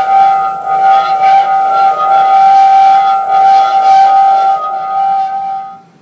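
Homemade typewriter organ holding a chord of steady tones with an uneven hiss above, cutting off sharply near the end.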